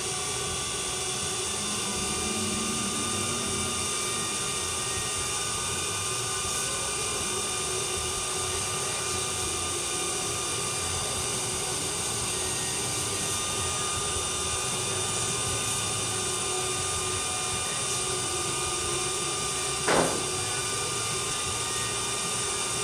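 Bolt Buster induction heater running a heat cycle on a rusted, seized nut, superheating it so that it expands: a steady whine that holds one pitch, with a single sharp click about twenty seconds in.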